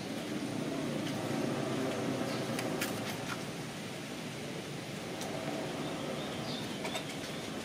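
Steady outdoor background noise with a low hum, with a few faint, brief high chirps and light clicks.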